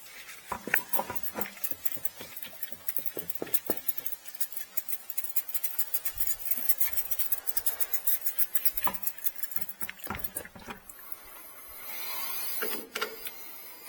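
Irregular light clicks, clinks and knocks of tools and parts being handled during work under a car, with a short hiss near the end.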